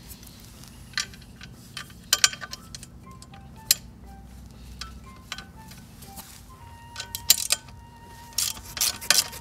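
Metal clicks of a socket wrench on a SYM 50 scooter's exhaust muffler bolts as they are forced home and tightened, ending in a quick run of regular clicks. Soft background music of short plinking notes plays throughout.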